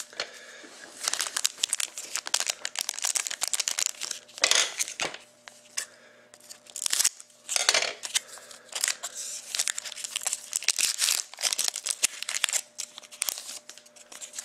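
2013-14 Panini Crown Royale hockey card packs being torn open by hand, the wrappers crinkling and tearing in irregular crackly bursts.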